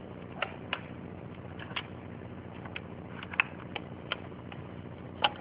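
Faint, irregular light clicks and taps of a small plastic cuvette being handled and set into an analyzer's cuvette holder, over a steady background hiss.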